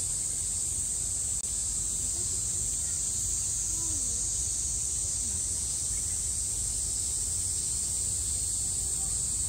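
A chorus of cicadas shrilling steadily, a continuous high hiss-like drone with no breaks, over a low steady rumble.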